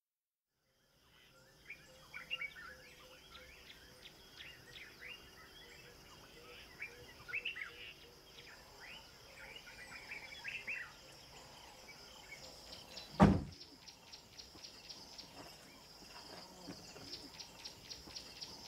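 Birds chirping and calling over a steady high insect buzz, which breaks into rapid pulsing about two-thirds of the way through. A single sharp knock about thirteen seconds in is the loudest sound.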